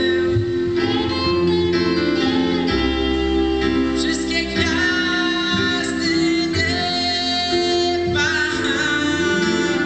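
Live band playing: a male singer sings into a microphone over electric guitar, keyboard and drums.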